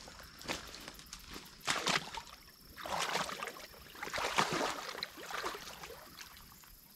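Irregular sloshing and swishing steps of a person moving on foot through shallow water and brush, with a few sharp clicks.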